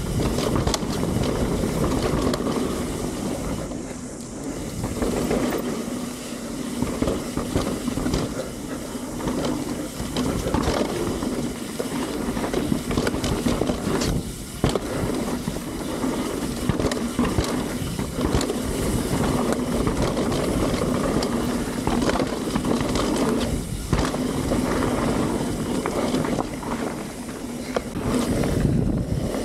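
Mountain bike riding fast down a dirt trail: tyres rolling over the ground with continual rattles and knocks from the bike over bumps.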